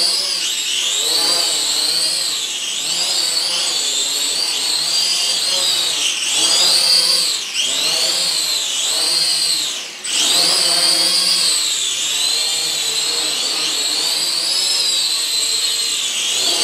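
SAN HUAN SH5W toy quadcopter's four motors and propellers whining in fast indoor flight. The high whine rises and falls over and over as the throttle changes, dropping briefly twice.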